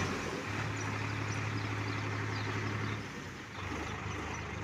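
Tractor engine running steadily while moving a trolley loaded with gravel, its low hum easing off about three seconds in.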